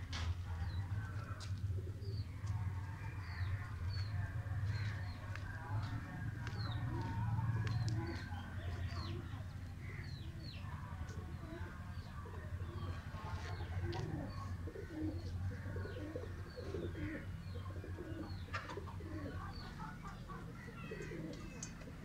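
Domestic pigeons cooing over and over, with short high chirps of small birds throughout. A steady low hum lies underneath and weakens after about eight seconds.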